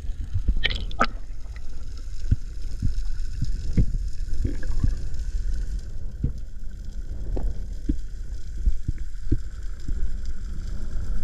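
Underwater camera sound: a muffled low rumble of moving water with many short scattered clicks and knocks, and a faint steady high tone.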